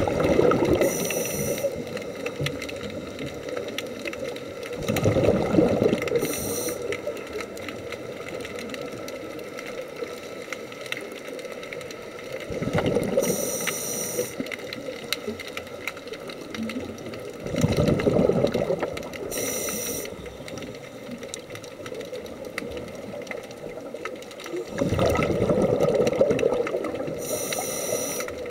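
Scuba diver's breathing heard underwater: about every six seconds a rush of exhaled bubbles lasting a second or two, each ending with a brief high hiss from the regulator. Five breaths in all.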